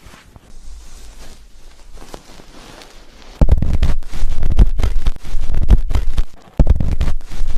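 Hands scrubbing hair and scalp right against the microphone. It starts as a soft rustle, turns into loud, rumbling friction about three and a half seconds in, stops briefly, then comes back for the last second or so.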